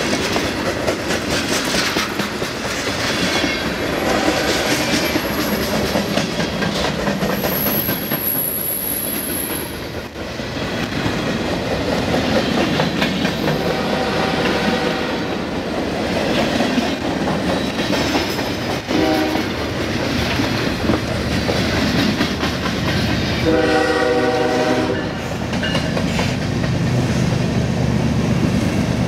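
Loaded freight cars, tank cars and boxcars, rolling past close by: a steady rumble with the clickety-clack of steel wheels over rail joints. A few short pitched tones rise out of the noise, the clearest late on.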